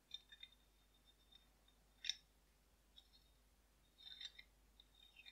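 Faint clicks and light taps of small steel revolver parts being handled, as the Astra Cadix's barrel is brought to and fitted against the frame. There is a sharp click about two seconds in and a cluster of clicks a little after four seconds.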